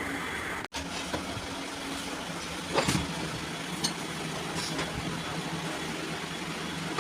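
An engine idling steadily, with a few faint knocks, and a brief silent break a little under a second in.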